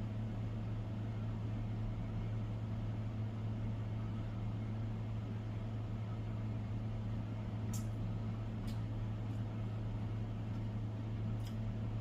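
Steady low hum, with a few faint sharp clicks about eight seconds in and again near the end.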